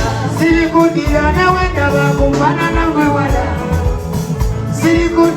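Music with a singer over a pulsing bass beat.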